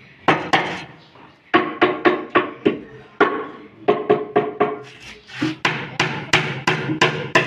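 Hammer driving nails into wood: quick runs of sharp strikes, about four a second, with short pauses between runs and a brief metallic ring after each blow.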